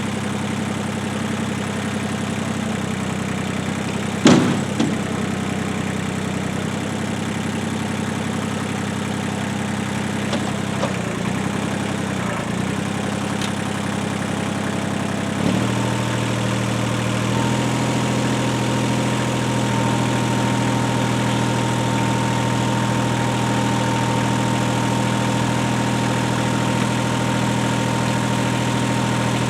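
Tractor engine running steadily, with a sharp clank about four seconds in. About halfway through the engine speeds up, and a steady higher whine joins the engine note.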